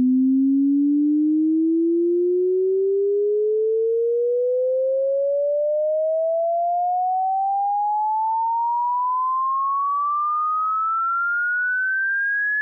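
Test-tone sine sweep: a single pure tone gliding steadily upward in pitch, from a low hum to a high whistle. It is a frequency sweep played for a speaker and subwoofer sound check.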